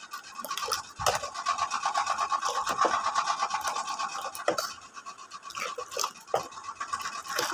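Cold water poured in a thin stream into a steel bowl of thick blended raw-mango pulp, splashing steadily into the liquid, with a knock about a second in.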